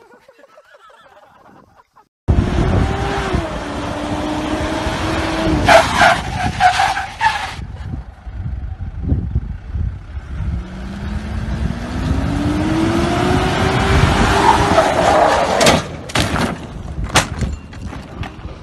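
SUV engine revving hard as it is driven on pavement, with the revs climbing, falling and climbing again. Tyre squeal comes twice, and a few sharp knocks or bangs follow near the end. The sound starts abruptly about two seconds in.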